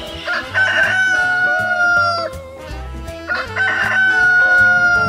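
A rooster crowing twice, each crow opening rough and ending in a long, slightly falling held note, over band music with a stepping bass line.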